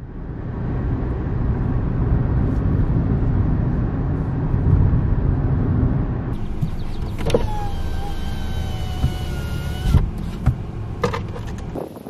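Steady road and wind rumble of a moving car heard from inside. About six seconds in the noise grows brighter and a few thin steady high tones sound for several seconds, with a few clicks near the end.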